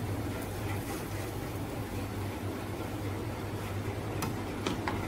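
A steady low mechanical hum, like a kitchen appliance or fan running, with a few light clicks near the end.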